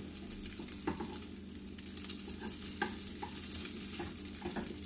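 Egg-and-nopal patties sizzling steadily as they fry in oil in a nonstick pan. A plastic spatula scrapes and taps against the pan a few times.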